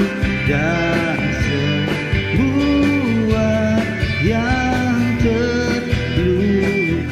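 Instrumental interlude of a karaoke backing track: a lead melody moving between held notes over a steady band accompaniment.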